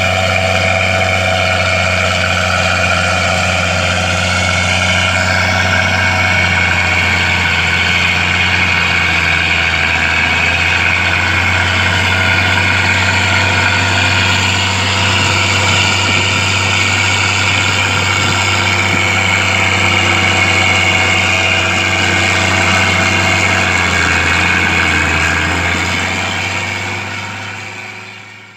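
Komatsu D65E bulldozer's diesel engine running steadily with a low, even hum, fading out near the end.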